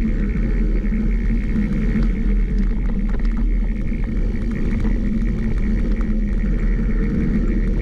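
Vehicle engine running under way, a loud steady drone with a thinner steady whine above it. The engine has a misfire.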